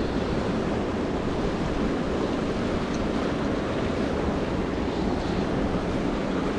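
Kern River rushing over and around boulders: a steady, even wash of fast water, with low wind rumble on the microphone.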